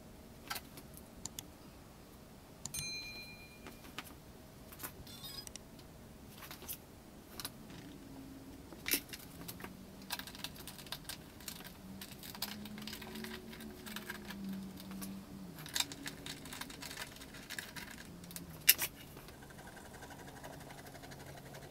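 Small metal parts, screws and Allen keys clinking and clicking on a wooden workbench as a desktop CNC kit's aluminium frame is put together by hand, with scattered sharp taps, two of them louder.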